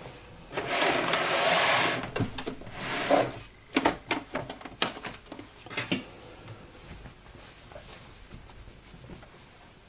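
Knit sweatshirt fabric rustling as it is bunched and shuffled by hand, about a second long near the start. Several light knocks and taps follow as the fabric is moved against the table and sewing machine, and the sound then fades to faint room tone.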